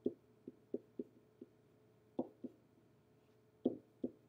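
Pen tapping and knocking on the surface of an interactive whiteboard while writing: about nine short, irregular taps over a faint steady hum.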